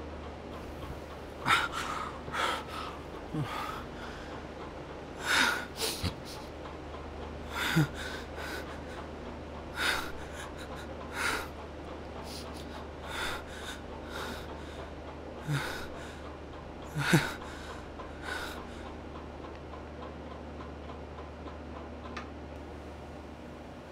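A man's short, ragged gasping breaths and sniffs, coming every second or two, then stopping several seconds before the end.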